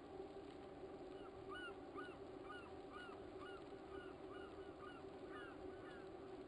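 A bird calling repeatedly, short arched calls about two a second, starting about a second in and stopping near the end, over a faint steady low hum.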